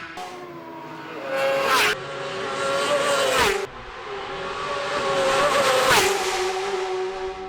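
Racing motorcycles passing at full speed three times, each engine's high whine dropping in pitch as it goes by.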